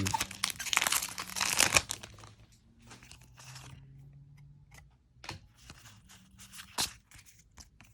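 A Pokémon trading-card booster pack's foil wrapper being torn open and crinkled for about two seconds, followed by fainter rustles and sharp little clicks as the cards are handled.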